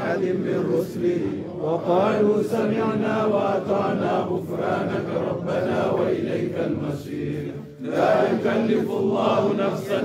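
A group of men's voices chanting together on long held notes, with a brief break about eight seconds in.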